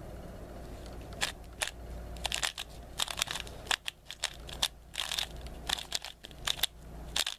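Valk 3 3x3 speedcube, factory-lubed and tensioned, being turned by hand: an irregular run of plastic clicks and clacks as the layers turn, starting about a second in.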